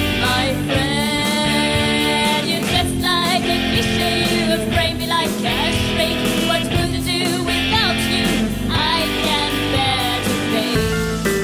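A song playing: a singer's voice over guitar, with a steady beat.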